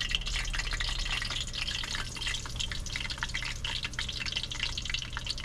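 Hot frying oil sizzling and crackling around a freshly dropped piece of breaded cero mackerel: a dense, steady patter of small pops.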